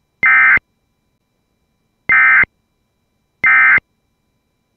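Emergency Alert System digital data bursts (SAME codes): short, harsh buzzy bursts of about a third of a second, three of them with silence between, and a fourth starting at the very end. Sent after the test message, they are the end-of-message code that closes the alert.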